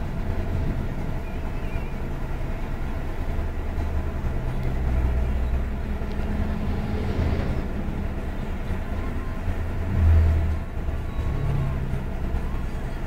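Road traffic at a junction: the engines and tyres of cars, motorcycles and heavy lorries moving past, a steady low rumble that swells briefly about ten seconds in.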